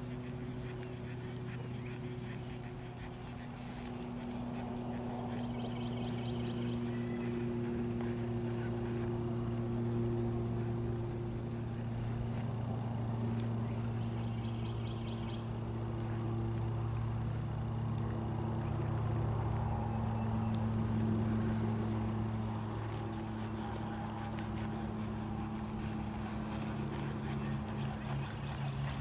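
A steady low motor hum that swells and fades slowly, with a constant high insect drone over it and a few brief chirps.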